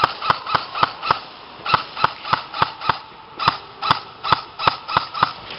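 Airsoft gun fired in quick single shots, about three or four a second, in three strings with two short pauses between.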